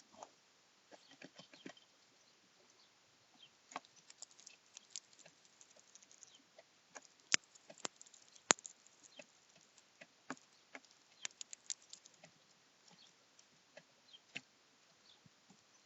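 Irregular sharp clicks and taps of hawfinches pecking at a bird feeder and cracking seeds, with two louder snaps about seven and a half and eight and a half seconds in.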